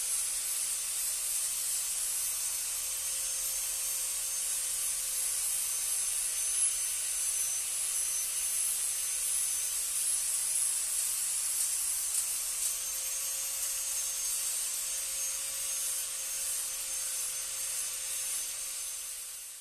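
Steady, continuous hissing from a tool working on a motorcycle frame during paint preparation, with a faint constant tone beneath it.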